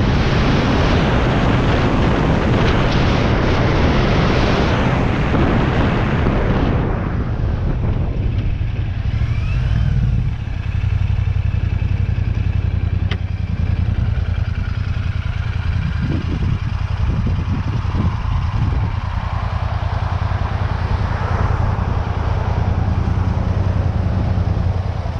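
Royal Enfield Shotgun 650's parallel-twin engine running under loud wind noise on the helmet microphone. About seven seconds in, the wind dies away as the bike slows, leaving the engine's low, steady exhaust note at low speed.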